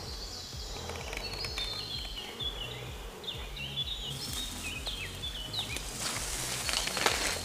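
Footsteps on dry grass and rustling through leafy undergrowth, loudest about six seconds in as the walker pushes through the brush, under a string of short, high chirping calls from the surrounding woods.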